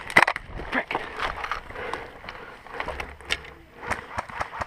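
Dry brush branches scraping, rustling and snapping against a player and his gear as he pushes through the shrubs: irregular sharp cracks and clicks, loudest just after the start.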